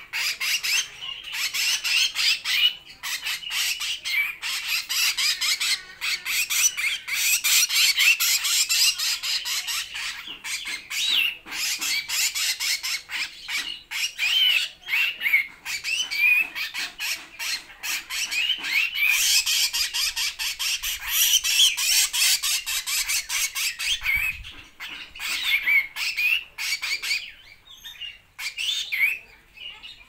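Hair-crested drongo fledglings (sri gunting jambul) giving harsh, high-pitched begging calls, rapid and nearly continuous, fading out over the last few seconds.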